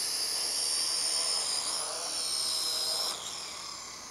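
SG907 quadcopter's geared motors and propellers whining as it sets down, the pitch wavering about two seconds in, then dropping sharply about three seconds in as the motors throttle down on the turf with the props still turning. One of the motors is a fresh replacement under test.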